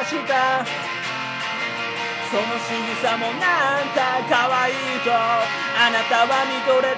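Gibson Firebird electric guitar playing a melodic lead line with bent notes that glide up and down.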